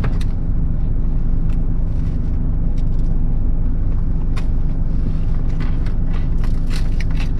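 Crunching and chewing of a hard, stale hot-dog bun that is untoasted and "like a crouton": scattered sharp crunches that come thicker in the last couple of seconds. Under it runs a steady low hum from the car.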